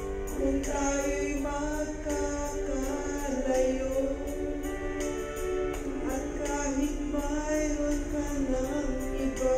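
A woman singing a Filipino love ballad into a handheld karaoke microphone over a backing track with a steady ticking beat.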